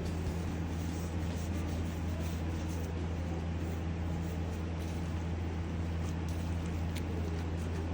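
A steady low machine hum with an even hiss over it and a few faint ticks.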